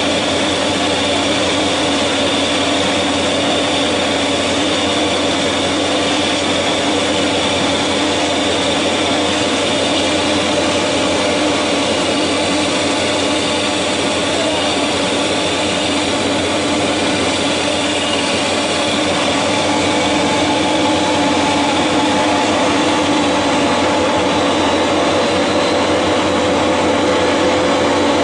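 Fish feed extruder line running: steady machine noise with a constant hum and a high whine held over it, growing slightly louder in the last third.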